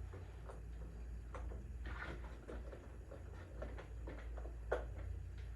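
A few faint clicks and light knocks of small parts being handled, the sharpest near the end, over a steady low hum.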